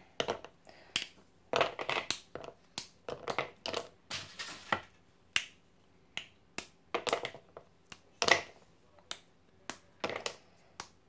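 White chocolate bars snapped into squares by hand, each piece dropped into a plastic bowl: a quick, irregular series of sharp snaps and light clicks.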